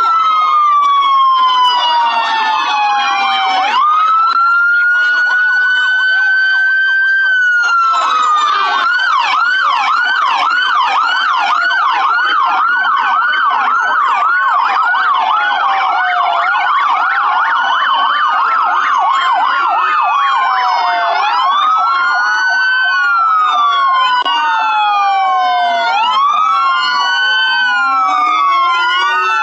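Several electronic emergency-vehicle sirens sounding at once and overlapping. Slow rising and falling wails give way to fast yelps from about eight seconds in, then return to several overlapping wails about twenty seconds in.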